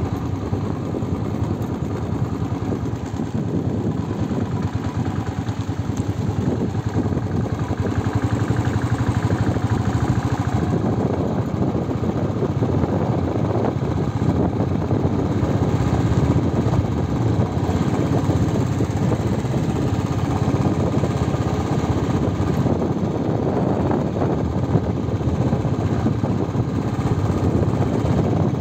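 A two-wheeler's small engine running steadily while riding along a rough road, with wind and road noise.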